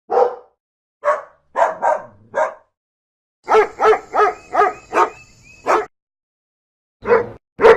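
A dog barking: single barks and short runs, about a dozen in all, including a quick string of five near the middle at roughly three a second. The takes are separated by gaps of dead silence.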